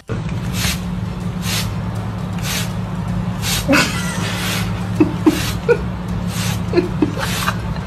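Trigger spray bottle spritzing water in short hisses, about one a second, with a few small noises from a puppy between the sprays, over a steady low hum.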